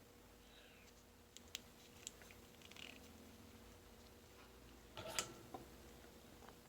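Near silence: faint room tone with a steady low hum and a few faint, short clicks, the loudest cluster about five seconds in.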